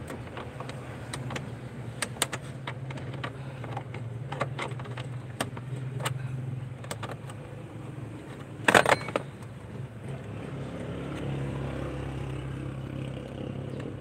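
Scattered small clicks and rattles of hands handling car alarm wiring under a dashboard, over a steady low hum. About nine seconds in there is one louder, scraping burst lasting about half a second.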